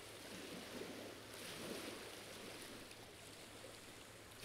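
Faint steady hiss with no distinct event, swelling slightly for about a second near the middle.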